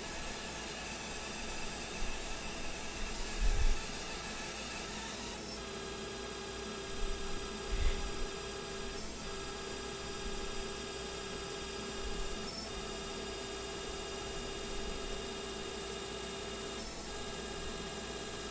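20 W fiber laser marking anodized aluminum: a steady, drill-like high-pitched buzz from the galvo scanner and laser pulsing. A mid-pitched tone joins a few seconds in and breaks off briefly every three to four seconds as the marking moves between passes. Two low bumps come near the start and about eight seconds in.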